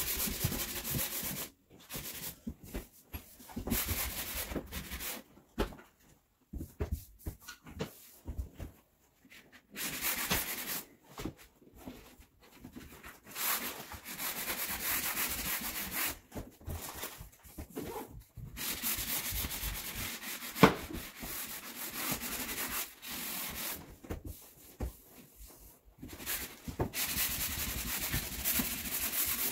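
Hand sanding of painted wooden cabinet face frames: scratchy rubbing strokes in uneven spells with short pauses between them. There is one sharp knock about two-thirds of the way through.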